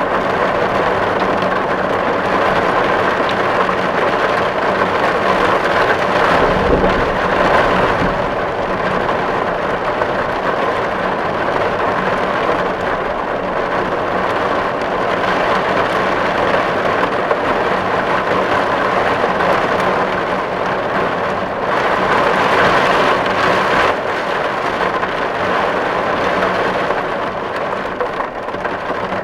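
Dense, steady rain falling on a tin roof, swelling louder twice, with a brief low rumble about seven seconds in.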